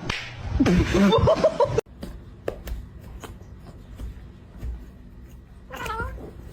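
A cat yowling loudly for the first couple of seconds, then after a sudden cut a quieter stretch with small clicks and one short cat call near the end.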